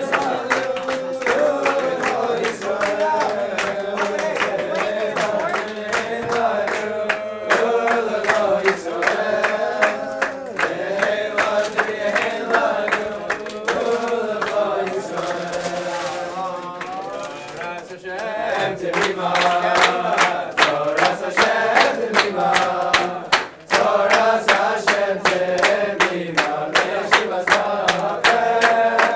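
A group of men singing together in celebration, with rhythmic hand-clapping along with the song. The singing thins out briefly about halfway through, then picks up again louder.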